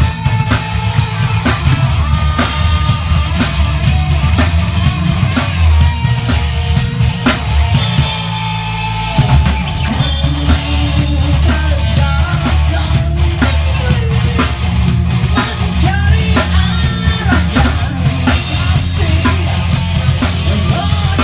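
Rock band playing live and loud: drum kit beating steadily under electric bass and electric guitar. About eight seconds in, the bass and drums drop out briefly under a ringing cymbal wash, then the full band comes back in.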